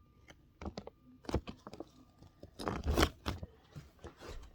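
Plastic magnet-toy building pieces being handled: a series of clicks and clacks as they are picked up and knocked together, with a louder clatter about three seconds in.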